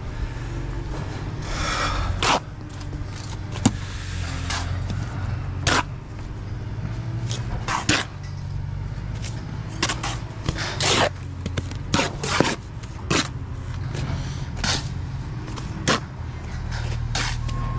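Repeated sharp scrapes and clinks of a steel brick trowel cutting and working mortar on a spot board, over the steady low drone of an engine running. A reversing alarm starts to beep near the end.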